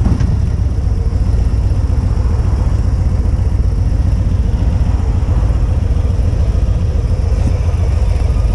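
Harley-Davidson Street Glide ST's Milwaukee-Eight 117 V-twin running at low speed, a steady, heavy low rumble picked up by a GoPro microphone.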